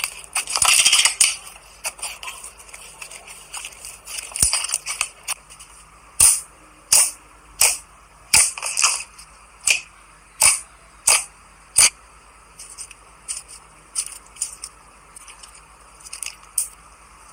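Slime being squeezed and pressed. A crackly squish comes about a second in, then a run of sharp pops and snaps about a second apart from the middle on, and softer clicks near the end.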